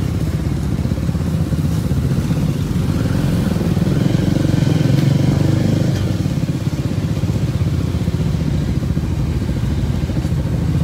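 Motorcycle engines running at low speed as several vehicles move slowly together, a steady low rumble that swells a little about four to six seconds in.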